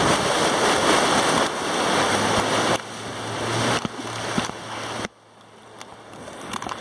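Rushing whitewater of a river rapid churning and splashing against an inflatable raft's pontoon. The rush drops off sharply about three seconds in and again about five seconds in, then builds back.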